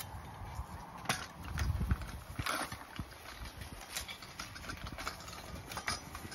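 Irregular knocks and clatter from a loosely bolted homemade remote-control mower frame rolling over bumpy lawn on its electric wheelchair drive motors and mobility-scooter casters, over a low rumble.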